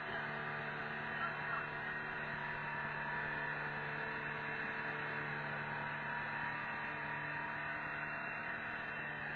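Boat engine running at a steady speed, a constant drone with wind and water rushing past the open boat.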